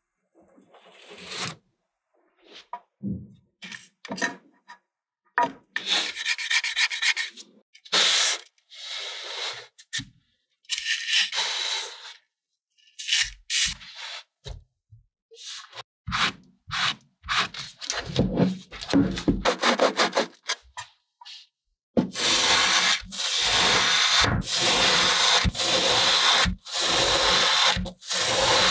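Kinetic sand being cut, scraped and packed: a series of separate soft crunching, rasping rubs. Near the end, a long run of quick sawing strokes as a plastic serrated knife slices through a packed block of sand.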